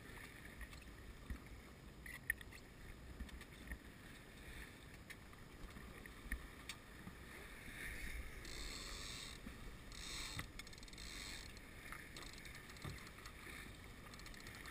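Grand Surprise keelboat under sail in a choppy sea: water rushing along the hull and wind on the microphone, with scattered small clicks and two brief louder rushes about eight and ten seconds in.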